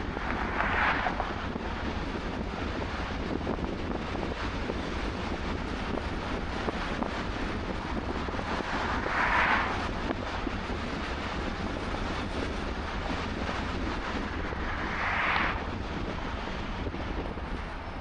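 Steady road and wind noise of a car driving at speed, over a low rumble of engine and tyres. Three brief louder whooshes come about a second in, about nine seconds in and about fifteen seconds in, as oncoming cars pass.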